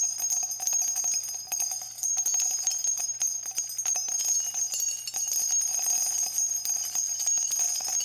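Jingle bells ringing continuously: many small, rapid jingles over a steady high ringing.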